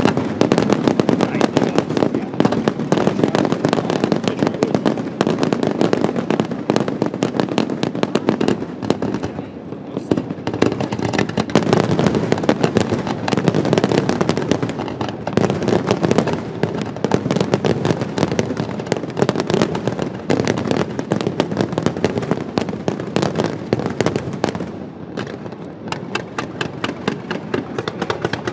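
Large professional fireworks display: a continuous barrage of rapid bangs and crackling from aerial shells and low fountain effects, easing briefly about ten seconds in and again about twenty-five seconds in.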